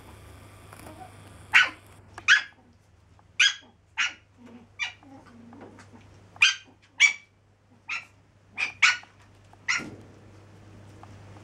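Chihuahuas yapping at play: about a dozen short, high-pitched yaps, several coming in quick pairs.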